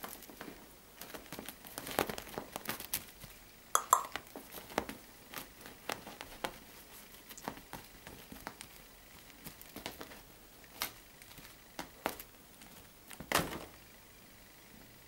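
Maine Coon kitten playing with a wand toy on a cat tree: irregular soft clicks and rustles as it bats and pounces, the sharpest about four seconds in and again near the end.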